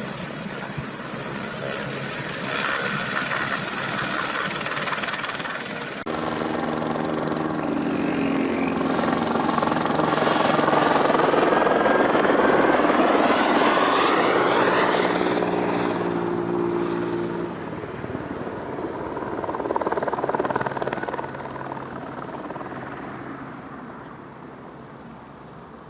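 Helibras AS 350 B2 single-turbine helicopter, its turbine whine high and strong at first. After an abrupt cut about six seconds in, the helicopter passes by with its rotor and engine tones falling in pitch. It is loudest around the middle, then fades away.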